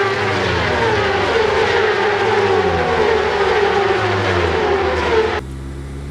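Several racing motorcycle engines at high revs passing on a circuit, their pitch sliding down and up as they brake, shift gears and pass. About five seconds in, this cuts abruptly to a single motorcycle engine running steadily at a lower level.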